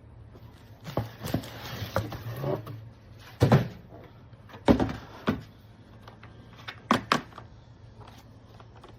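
A series of irregular knocks and clicks, with a stretch of rustling in the first few seconds, as of hard objects being handled and set down.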